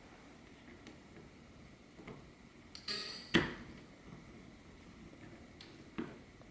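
Clicks and a clack from handling the parts of a smart deadbolt lock during reassembly: a few light clicks, a short scraping burst about three seconds in that ends in one sharp, loud click, and another click near the end.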